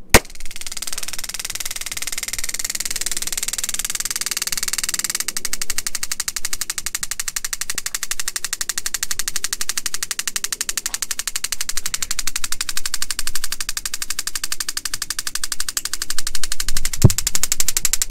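TASER Pulse+ firing its probes with a sharp pop, then its electrical pulses clicking in a rapid, steady stream through the probe wires for the whole 30-second cycle, still going.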